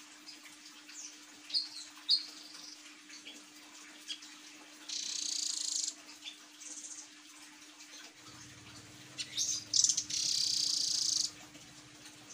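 Blue nuthatch calling: a few short, sharp high chirps, then two fast high-pitched trills, one about a second long and one about two seconds long. A faint steady low hum sits underneath.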